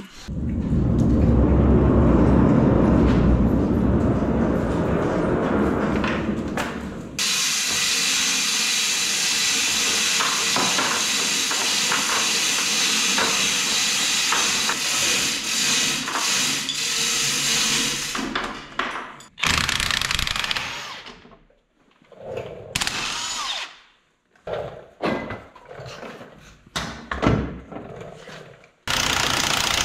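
Power tools running: a deep rumbling run for the first several seconds, then a long steady high-pitched whir, then a string of short bursts with pauses between them.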